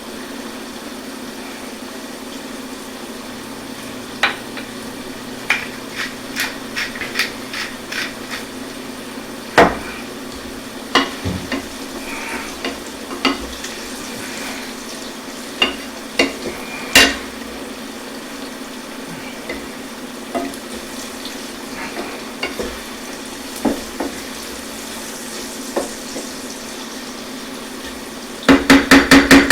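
Sausage and vegetables sizzling steadily in a pan on an induction cooktop while a spoon stirs them, with scattered clinks and scrapes against the pan and a quick run of rapid scraping near the end.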